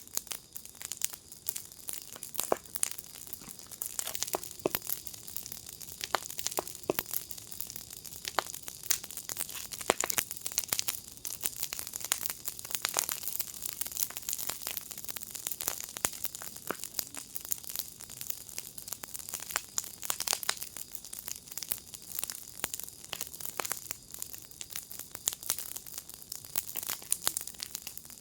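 Wood fire in a firepit crackling steadily, with dense irregular pops and snaps over a soft hiss.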